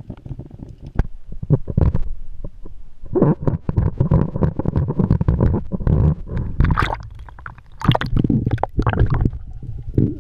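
Underwater sound heard through a GoPro's waterproof housing: a low, muffled rumble of moving water with many irregular sharp clicks and knocks.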